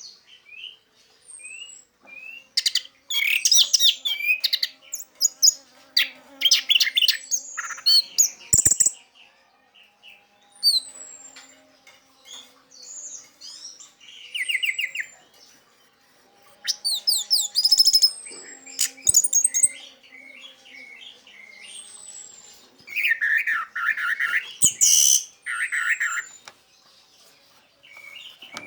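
Orange-headed thrush (anis merah) in full, vigorous 'teler' song: varied phrases of rapid chirps, trills and short whistles, with short pauses between them.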